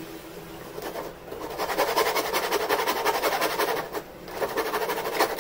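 Hand saw rasping through a small piece of wood in quick, even strokes while a curve is cut. It starts about a second in, stops briefly around four seconds, then resumes.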